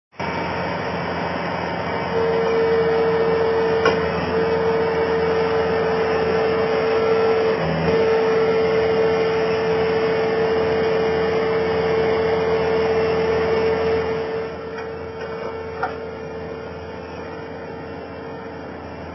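Skid steer engine running steadily, with a steady whine that comes in about two seconds in and fades near the end as the machine gets quieter.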